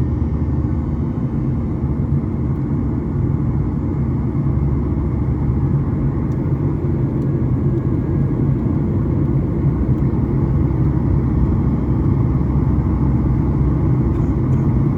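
Steady low rumble of a Boeing 737's engines and airflow, heard inside the passenger cabin.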